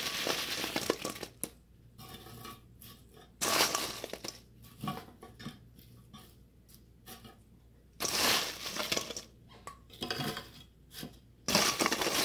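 Crinkle-cut french fries being picked out of a stainless steel bowl and dropped onto slate serving boards, in several short bursts of crisp rustling and clinking.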